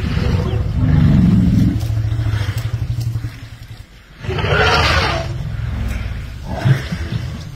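Elephants calling: a deep, steady rumble, then a louder, harsher call about four seconds in and a shorter one near the end.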